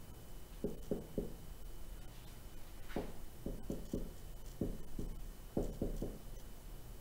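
Marker writing on a whiteboard: a series of short strokes in small groups, about a second in, again from about three seconds in, and once more near six seconds.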